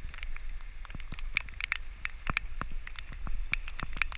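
Raindrops ticking on a GoPro's waterproof housing: sharp, irregular taps several times a second over a low steady rumble.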